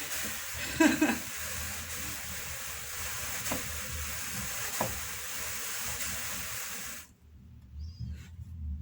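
Drum carder carding Jacob fleece: a steady hissing rasp of the carding cloth brushing through the wool, with a couple of light ticks, stopping abruptly about seven seconds in and leaving only a faint low hum.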